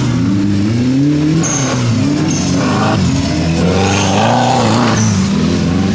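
Off-road racing buggy's engine revving hard, its pitch rising and falling again and again as the driver works the throttle through the course. It passes close by about four seconds in.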